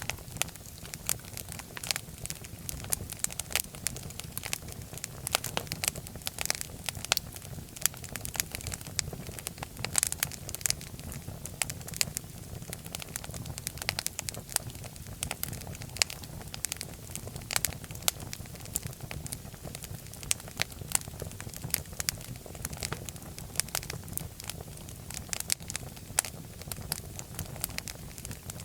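Wood fire crackling in a fireplace: a steady low rumble of flames with frequent sharp, irregular pops and snaps.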